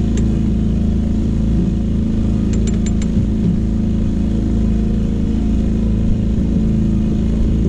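Boat's outboard motor running steadily at trolling speed, a constant droning hum with wind and water noise. A few light clicks come about two and a half to three seconds in.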